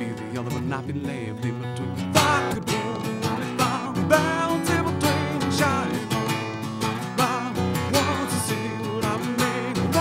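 Acoustic guitar played live, a fast run of picked and strummed notes with some wavering, bent notes, in an instrumental passage of a song.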